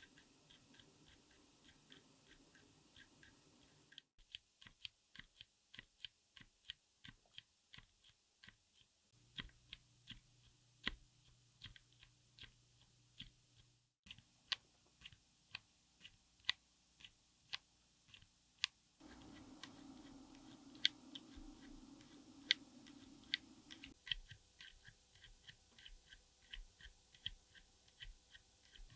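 Typing on a mechanical keyboard fitted with silent switches: a fast run of soft, muted keystroke clacks, a few per second. The sound changes abruptly about every five seconds as one switch recording gives way to the next.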